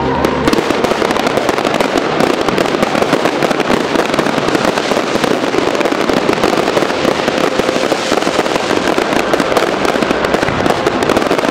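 Dense, continuous crackling: many rapid sharp pops in quick succession, steady in loudness throughout.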